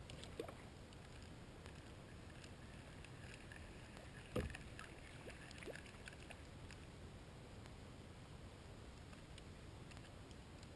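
Faint outdoor background with a few small splashes and ticks as a small hooked fish thrashes at the water's surface beside a kayak. One sharper knock comes about four seconds in.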